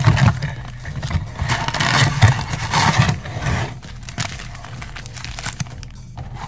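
Foil trading-card pack wrappers crinkling and rustling as packs are lifted out of a cardboard box, loudest in the first half and quieter after about three and a half seconds, over a steady low hum.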